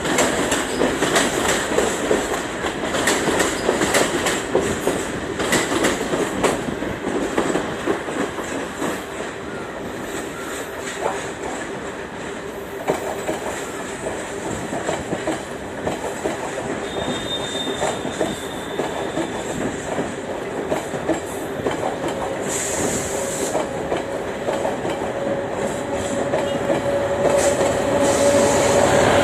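Diesel train running along the track, its wheels clicking over the rail joints, with a steady hum that grows louder near the end.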